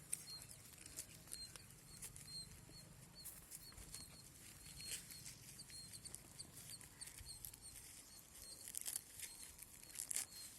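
Faint rustling and crackling of leaves and stalks, with a short high chirp repeating about twice a second.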